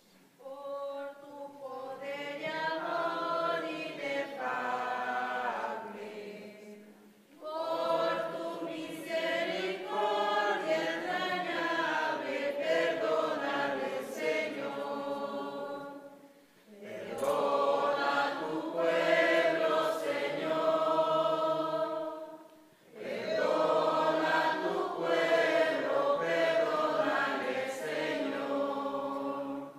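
Congregation singing a hymn in unison-style group voice, in four long sung phrases with brief pauses between them.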